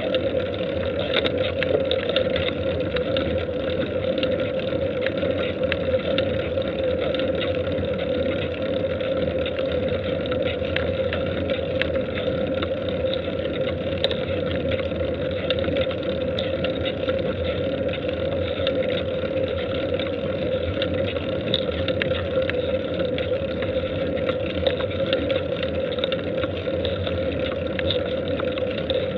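Steady rushing noise of wind and road travel picked up by a camera moving up a paved road, with faint ticks here and there.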